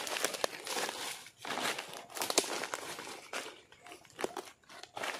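Footsteps crunching through dry fallen leaves, with irregular crackling rustles and sharp snaps as leaves and plants are brushed aside.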